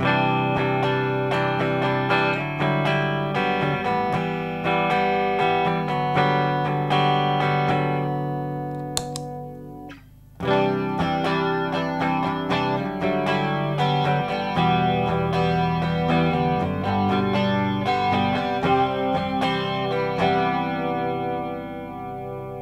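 Electric guitar played through a Small Clone-style analog chorus pedal, ringing chords and notes with a wavering chorus shimmer. There is a brief break about ten seconds in, then the playing resumes.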